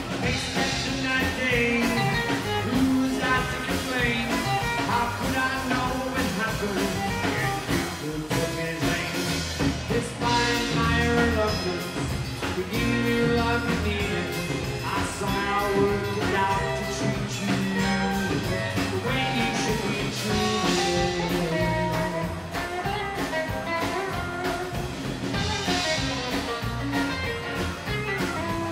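Live rockabilly band playing: acoustic guitar, upright double bass and drum kit, with a male singer at times.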